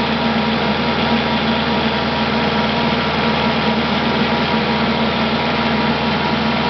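Engine of a snow-plowing vehicle running steadily, a constant low hum with no changes in speed.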